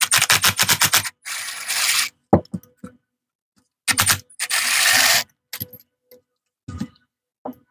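Ratchet wrench backing out the two bolts that hold the carburetor to the intake manifold: two bouts of rapid clicking about four seconds apart, each running together into a fast rasp for about a second. A few light clicks and taps of the loosened parts follow.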